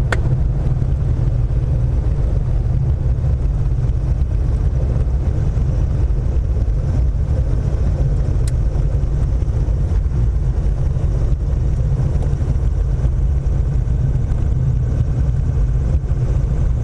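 Single-engine light aircraft's piston engine and propeller at idle during the landing rollout, heard from inside the cockpit: a steady low rumble that holds level throughout.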